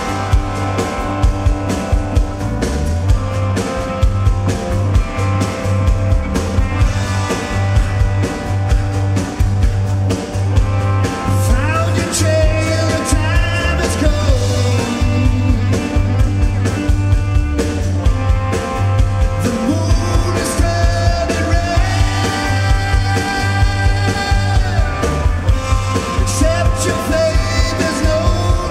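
Live blues-rock band playing: a drum kit keeping a steady beat under electric guitar and bass guitar, with a lead singer on the microphone.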